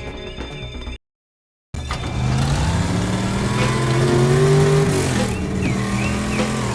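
A car engine running and revving, its pitch slowly rising and falling. It follows a brief dead gap about a second in that cuts off the music.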